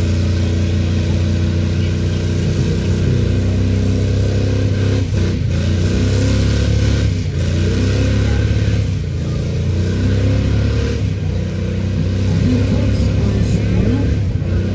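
Dodge Ram pickup's engine held at high revs in a one-wheel burnout, a single rear tire spinning on the spot. The engine note wavers and dips briefly a few times.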